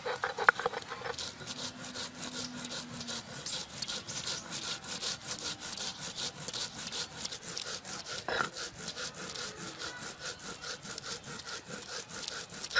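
A stone pestle (nora) grinding cumin seeds on a wet stone slab (shil): a gritty stone-on-stone scraping in rapid, even back-and-forth strokes as the seeds are crushed into paste, after a few sharper knocks at the start.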